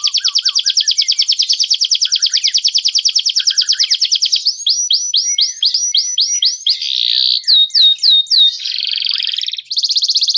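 Domestic canary singing in tours: a fast high trill of rapidly repeated notes, then a run of sweeping notes at about four a second, a few louder slurred whistles and a buzzy passage, with the fast trill returning near the end. Fainter, lower-pitched chirps run beneath.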